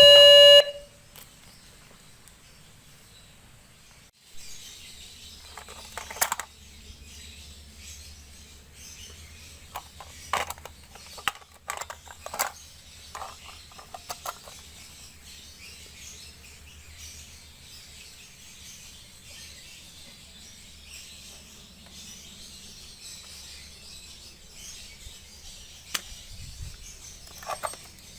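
A loud electronic beep tone cuts off about half a second in. Then comes a faint steady hiss with scattered short chirps and clicks.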